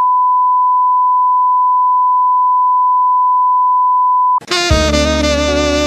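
Steady 1 kHz test tone, the reference tone played over colour bars, cut off about four and a half seconds in as loud music starts.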